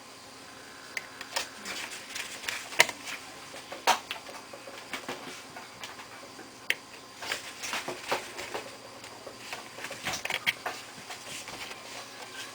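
Irregular small clicks and taps of plastic and metal laptop parts being handled and pressed into place during reassembly of a Toshiba A300.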